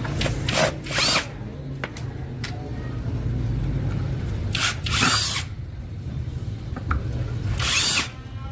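A handheld power tool running with a steady low hum, with four short, louder bursts of high-pitched noise as it works.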